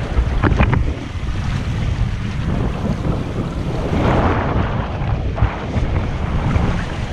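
Wind buffeting the microphone and sea water washing against a boat's hull, as a low steady rumble. There are a few sharp clicks in the first second and a louder rush of noise about four seconds in.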